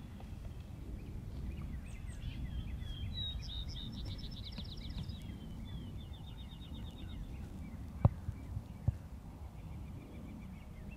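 Small songbirds singing, with scattered chirps and two rapid trills in the middle, over a low steady rumble of outdoor background noise. Two sharp clicks, the loudest sounds, come near the end, under a second apart.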